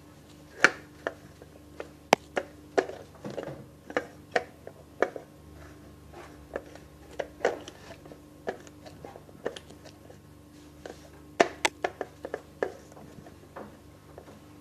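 Slime being squeezed and poked by hand, giving irregular sharp clicks and pops of trapped air, over a faint steady hum.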